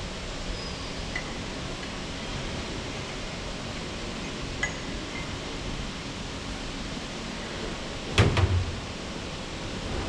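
Metal clicks and one heavy metal clunk about eight seconds in from work at a hydraulic shop press, over a steady background hiss.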